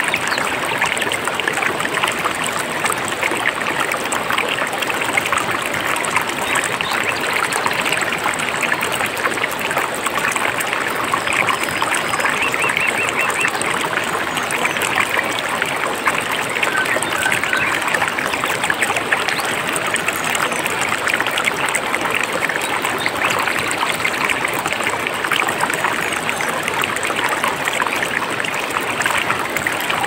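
Mountain stream running steadily, a dense bubbling and trickling rush of water. A few faint bird calls come through around the middle.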